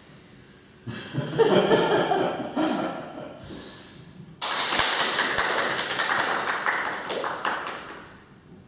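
Voices with chuckling and laughter, then applause that starts suddenly about halfway through and dies away near the end.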